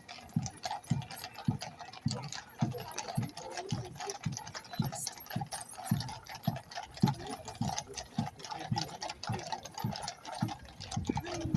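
Marching band's bass drum beating steadily, about two beats a second, at a marching pace, over the murmur of a crowd.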